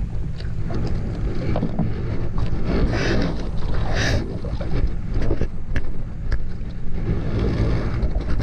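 Small fishing boat's engine running steadily, with wind on the microphone, scattered knocks, and two short hissing gusts about three and four seconds in.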